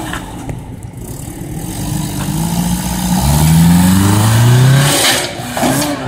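Honda Civic-engined off-road buggy accelerating, its engine revving up in several rising pulls, loudest from about three to five seconds in. A short burst of hiss follows about five seconds in.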